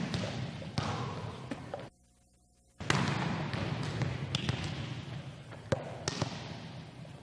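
Hissy old VHS recording of a gymnasium with a few sharp knocks on the hardwood court floor. The sound drops out to near silence for about a second, about two seconds in.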